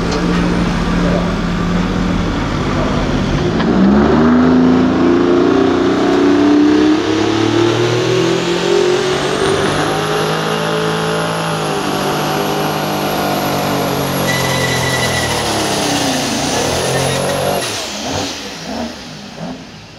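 Pro stock semi truck's diesel engine at full throttle pulling the sled. It revs up hard about four seconds in, with a high whistle climbing alongside, and holds there. Near the end it winds down and shuts off as the pull ends.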